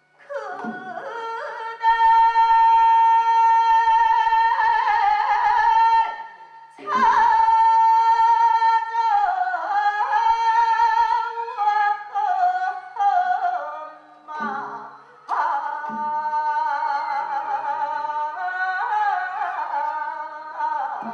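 A high voice singing a Korean folk song in long, wavering held notes with sliding pitch between them, over instrumental accompaniment; the line breaks off briefly twice.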